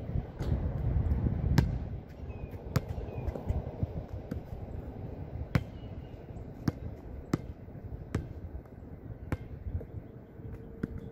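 Basketball bouncing on an outdoor hard court and striking the hoop: sharp single thuds, roughly one a second, at uneven spacing.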